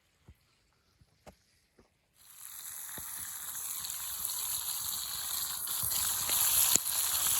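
Food frying in a pan: a dense sizzle that starts suddenly about two seconds in and slowly grows louder, with scattered pops. A few faint clicks come before it.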